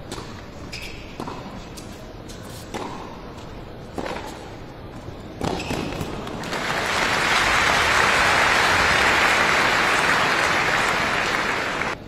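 A tennis rally: about five sharp hits of the ball, roughly one every second and a half. The rally ends and crowd applause swells from about halfway through, holds steady, then cuts off suddenly near the end.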